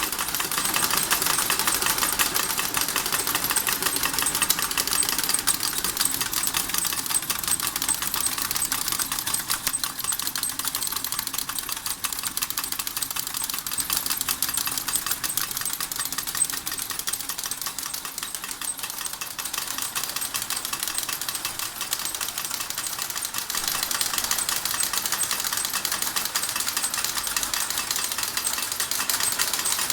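D21 model steam engine running, with a fast, continuous clattering and rattling of its moving parts, a little softer in the middle of the stretch.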